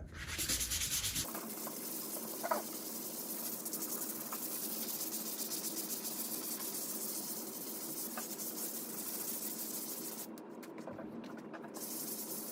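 Hand sanding of dried joint compound on a drywall patch: a steady scratchy hiss of abrasive rubbing back and forth, with a short break about ten seconds in.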